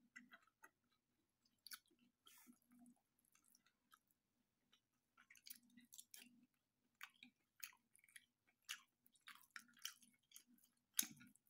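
Faint chewing and mouth sounds of a person eating close to the microphone, with scattered sharp clicks and a louder one near the end.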